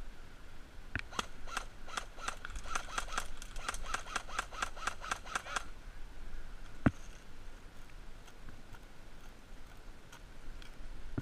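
Airsoft gun firing a fast, evenly spaced string of shots, about five a second for four to five seconds, then a single sharper crack a little later.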